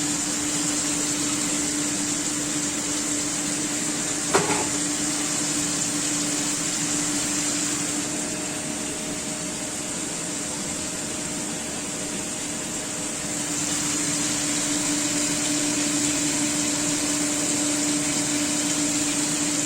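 A steady machine hum with a low and a higher fixed tone over a hiss, and a single sharp click about four seconds in.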